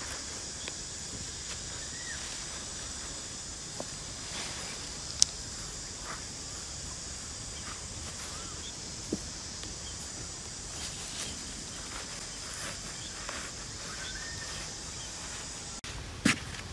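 Steady high-pitched insect chorus outdoors, with scattered faint clicks and a sharp tick about five seconds in as hands dig loose dry soil out of a burrow. A couple of sharp knocks near the end come from a wooden digging stick striking the earth.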